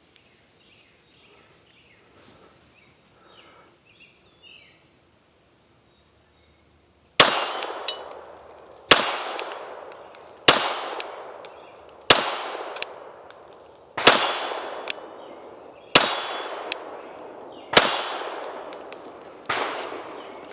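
9mm Glock 43X pistol fired in slow, steady single shots, about eight of them starting about seven seconds in, one every second and a half to two seconds. Each shot is a sharp crack followed by a long echoing decay with a ringing tone.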